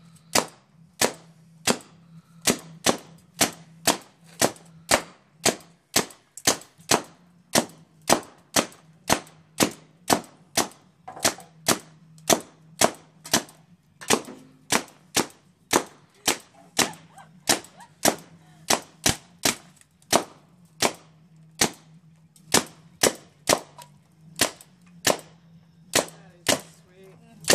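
Paintball marker firing shot after shot, about two sharp pops a second, with a few brief pauses.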